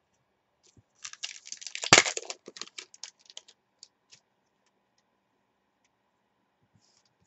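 A foil trading-card pack being torn open. There is a quick run of crinkling and crackling with one sharp snap about two seconds in, then a few light clicks as the cards are handled.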